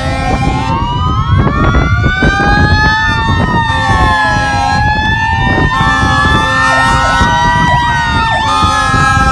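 Several emergency vehicle sirens wailing together, from a police car and a fire truck, their pitches rising and falling and crossing one another. Short, low, steady horn tones repeat through it.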